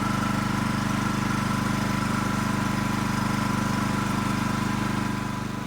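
Champion open-frame inverter generator's single-cylinder engine running steadily, with no load on it, and becoming somewhat quieter about five seconds in.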